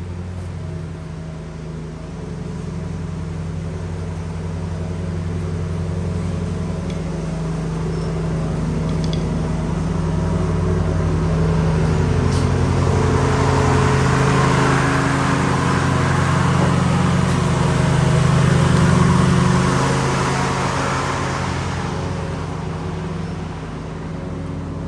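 Riding lawn mower engine running steadily as the mower goes by, growing louder to a peak about two-thirds of the way through and then fading somewhat.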